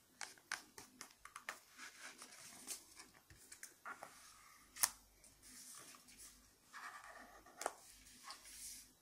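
Thin origami paper rustling, crinkling and sliding over a book page as it is handled, with many small crackles; the sharpest crackle comes just under five seconds in.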